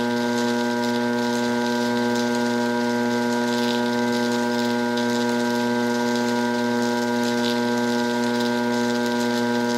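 South Bend lathe running at a slow spindle speed of about 61 RPM on its retrofitted DC drive motor: a steady, pitched hum that holds at one level throughout.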